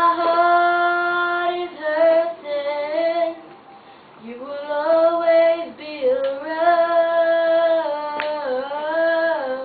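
A girl singing solo without accompaniment: two phrases of long held notes with a short pause between them a few seconds in, some notes sliding up or down in pitch.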